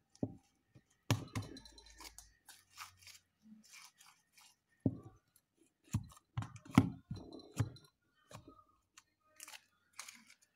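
A large blob of slime being squished, pressed and pulled apart by hand, giving irregular sticky clicks and squelching pops, busiest a little past the middle.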